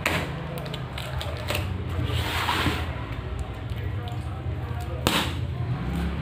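Plastic packaging being handled and pulled: crinkling and rustling, with a sharp snap at the start and another about five seconds in, over a low steady hum.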